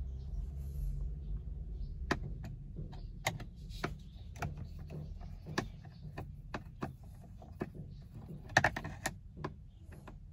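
A screwdriver working the mounting screws of an instrument cluster, giving a run of sharp, irregular clicks of metal on metal and plastic. A quick burst of clicks comes about a second and a half before the end.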